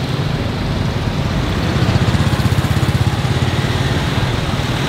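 A motor vehicle engine running close by with a fast, even throb that grows louder for a second or two in the middle.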